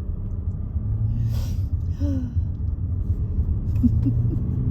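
Steady low rumble of a Range Rover driving, heard from inside the cabin, with a short breathy sound about a second and a half in.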